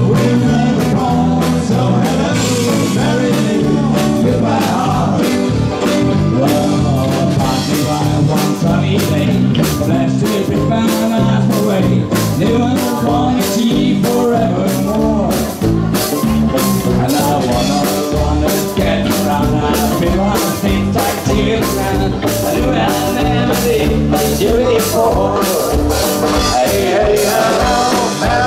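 Live country-rock band playing: electric guitars, bass guitar and drums with a steady beat, and a man singing at the microphone.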